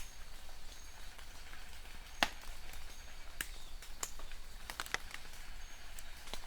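Steady rain hiss with scattered heavier drips knocking on a hard surface, the sharpest about two seconds in and a cluster of them near five seconds.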